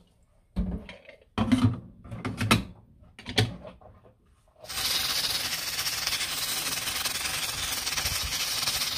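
A few clunks and knocks of a pressure cooker's metal pot and lid being handled and the lid fitted, then, from about halfway, a steady hiss of barley boiling in the pot, its surface covered in foaming bubbles.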